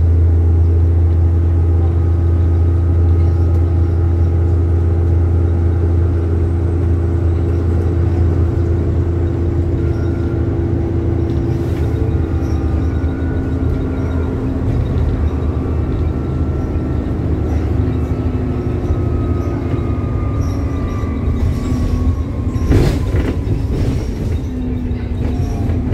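A 2008 service bus's diesel engine and drivetrain running under way, heard from on board: a steady low drone with a higher whine above it that slowly falls in pitch over the last few seconds as the bus slows. A single sharp knock comes about 23 seconds in.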